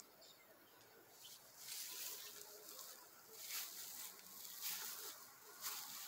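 Faint rustling in short hissy bursts about once a second, starting about a second and a half in.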